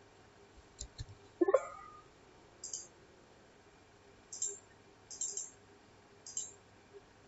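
Computer mouse clicks, about six short, sharp clicks spaced roughly a second apart, while closing a slideshow and stopping a screen recording. About a second and a half in, a brief, louder pitched sound rises in pitch.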